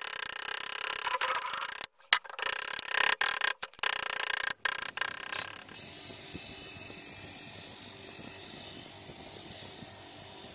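Rough metal-on-metal working noise from a hand tool on the draw knife's tang at the vise, broken by several brief gaps. About six seconds in it gives way to a bench grinder wheel running with the draw knife's steel blade held against it, a steadier and quieter whir.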